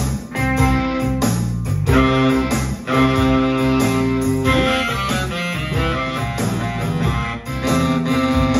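Electric guitar played through an amplifier together with an electronic keyboard, the two playing a blues instrumental with a steady bass line under held notes.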